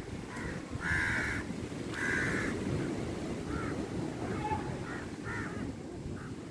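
Crows cawing: two loud caws about a second apart, then several fainter, shorter calls, over a steady low rumble.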